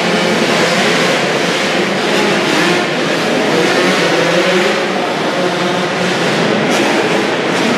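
Several 85cc two-stroke motocross bikes racing together, their engines revving up and down through the turns and jumps of an indoor dirt track.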